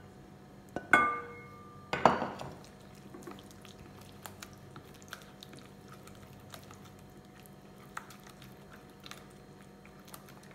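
Two ringing clinks of cookware, about a second apart, as a thick glutinous-rice-flour paste is scraped from a small saucepan into a glass mixing bowl. Then a silicone spatula stirs the paste in the glass bowl, with faint soft ticks and taps.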